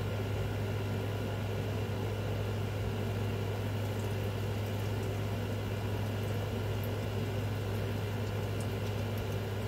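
Steady mechanical hum of a running appliance, with a strong low drone and a few faint clicks over it.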